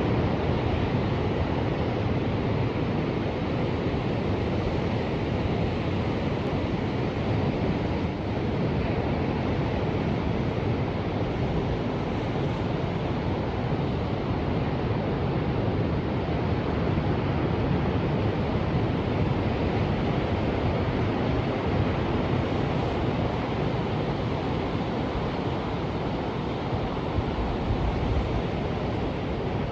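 Ocean surf: a steady, even wash of waves with no single wave standing out.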